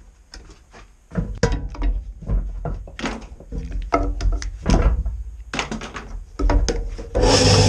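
Knocks and taps as a pine workpiece and a plastic spring clamp are handled on the table of a small bandsaw. About seven seconds in, the bandsaw's motor switches on and runs with a steady hum.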